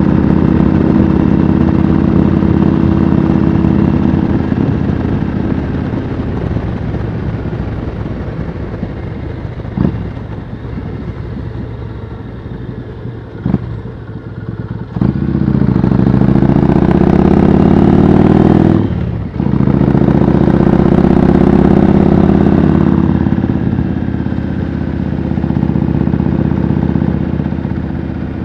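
Yamaha Road Star V-twin cruiser riding along through loud aftermarket pipes. It runs at steady throttle, eases off about a quarter of the way in with a couple of sharp clicks, then opens up loudly about halfway. The sound dips briefly and pulls again, then settles back near the end.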